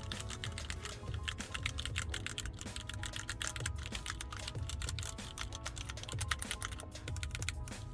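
Typing on a Keychron Q3 mechanical keyboard: a fast, uneven stream of key presses clacking, as a sound test of the freshly built board.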